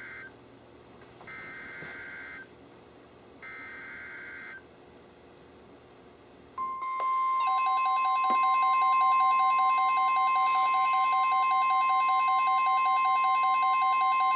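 NOAA Weather Radio EAS alert: the end of one and then two more short bursts of SAME digital header tones, then about six and a half seconds in the steady 1050 Hz warning alarm tone starts. Within a second the weather-radio receivers' own alert tones join it, several steady and some pulsing beeps sounding together.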